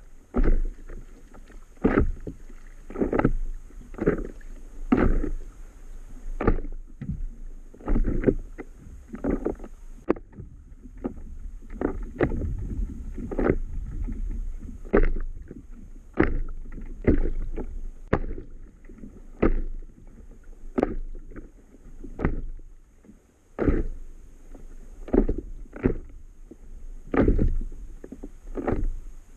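Small waves slapping against the hull of an inflatable paddle board: irregular splashy slaps about once or twice a second over a low wash of water.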